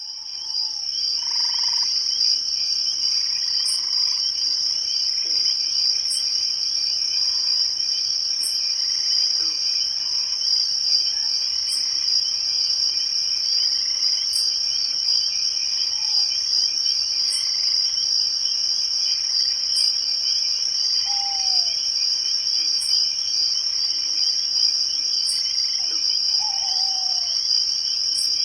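Night-time insect chorus of crickets: a dense, steady, high-pitched trilling that fades in over the first couple of seconds. A faint high tick repeats about every two and a half seconds, and a few short falling calls stand out near the end.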